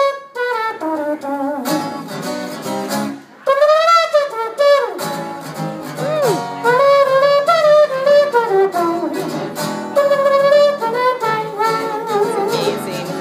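A man's voice imitating a trombone solo, a single melody line with sliding notes, over an acoustic guitar accompaniment.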